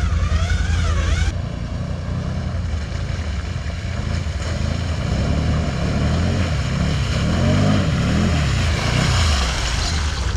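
Quad (ATV) engines running, with the pitch rising and falling over and over in the middle of the stretch as the quads rev through the mud ruts.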